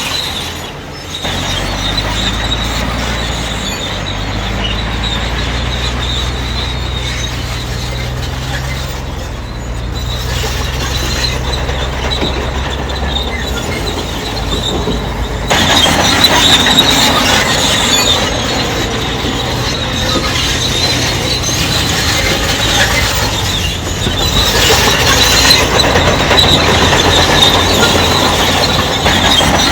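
Crawler bulldozer at work: its diesel engine runs while the steel tracks squeal and clatter. The sound gets louder and harsher about halfway through.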